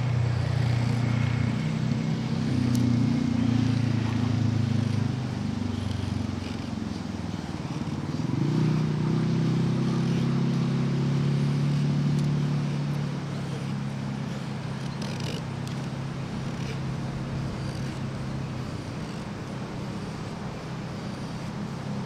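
A motor engine running steadily, its pitch shifting upward about eight seconds in, then settling lower and quieter for the second half.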